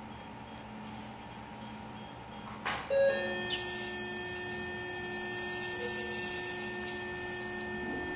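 Electrosurgical (cautery) unit sounding its steady activation tone for about five seconds, starting about three seconds in, with a hiss over it while the tissue is cauterised.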